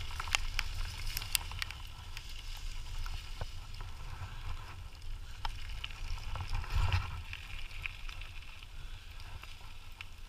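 Dog scooter rolling along a trail: a steady low rumble of the wheels and wind on the microphone, with scattered clicks and rattles from the scooter's frame and fittings.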